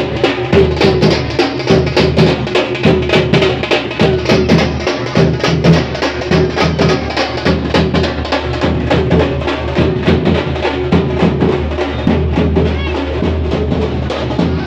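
Loud, fast drumming, dense quick strokes with no pause, with a steady held tone above the beat.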